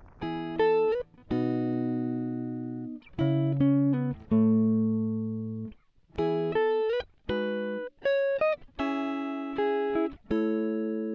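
Background music: a solo guitar playing single notes and held chords, with several slides up in pitch and long ringing sustains.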